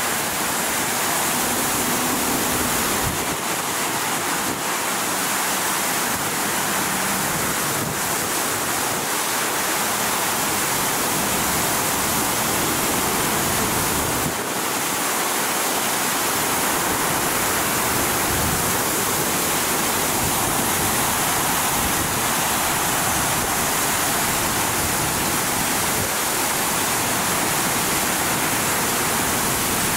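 Water gushing at high pressure from a sheared fire hydrant, a steady rushing hiss.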